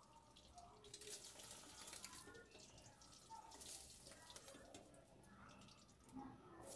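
Near silence, with a few faint, soft knocks.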